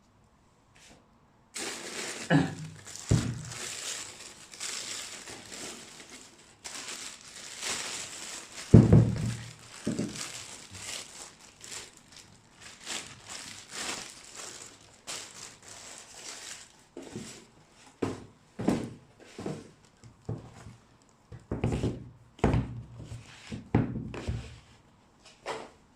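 White tissue wrapping paper rustling and crinkling as sneakers are unwrapped from it, with a loud dull thump about nine seconds in and scattered crinkles and knocks later on.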